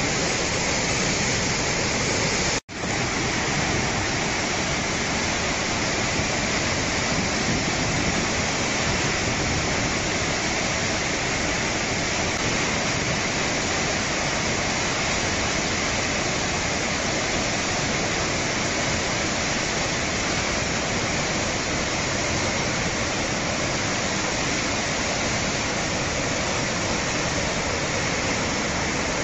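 Swollen river in flood: a steady, dense rush of fast, churning water, cutting out for an instant about two and a half seconds in.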